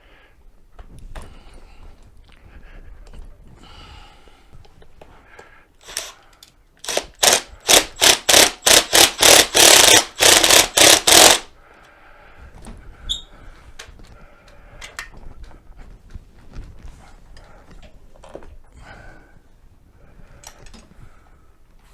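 A quick run of about fifteen loud knocks, about three a second, from tool work on a mobility scooter's seat mounting, with quieter clatter of handling before and after.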